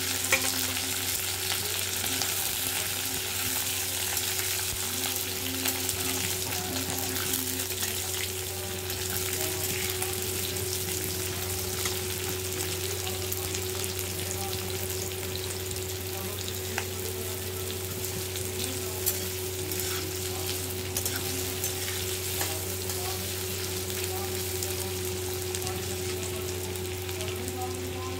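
Sliced onions and green chillies sizzling in hot oil in a metal kadai, with a metal spatula scraping and clicking against the pan as they are stirred. A steady low hum runs underneath.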